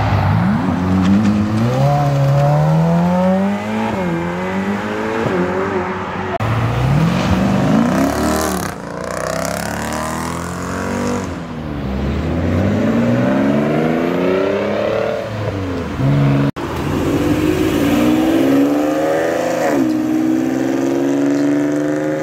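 Performance car engines accelerating hard: the revs climb, drop at each gear shift and climb again, with cars sweeping past around the middle. The sound breaks off abruptly about 16 seconds in, then another car accelerates with rising revs through a shift.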